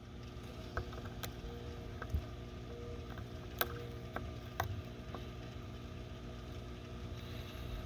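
Scattered light clicks and taps of a PVC pipe and plastic ball valve being handled and straightened where they sit in a rubber Uniseal grommet on a plastic bucket, over a steady low background rumble.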